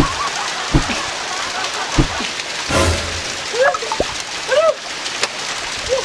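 Steady splashing hiss of falling water from a small waterfall onto rocks, with a few dull thumps and some short arched tones over it.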